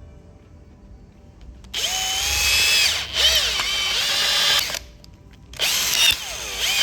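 Power drill driving a headless self-tapping screw into a wooden plug stuck in a hole saw. It runs in two bursts, one starting about two seconds in and a shorter one near the end, and the motor's pitch sags and wavers as it takes load.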